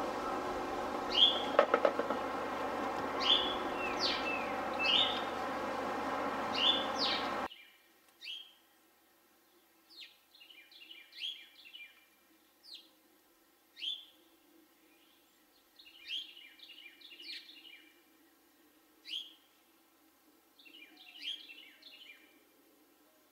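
Backyard birds calling at the feeders: short, sharp high-pitched call notes every second or two, some single and some in quick chattering runs. For the first seven seconds or so a steady background noise lies under them, then it cuts off suddenly.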